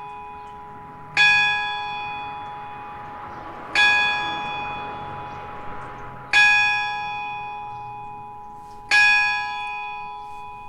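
Eijsbouts church bell struck by a hammer with a strike note of G-sharp (gis2), four strokes about two and a half seconds apart, each ringing and fading slowly.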